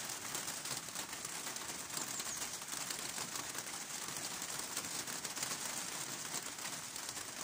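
Rain pouring steadily onto leaves and pavement, an even hiss of many fine drops, with birds calling.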